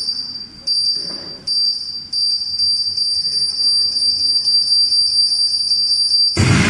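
High-pitched electronic beep tone in a pre-recorded backing track. Three short beeps, then one held tone that is cut off by a loud explosion effect near the end.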